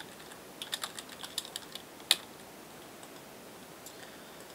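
Typing on a computer keyboard: a quick run of light keystrokes, then one louder single click about two seconds in.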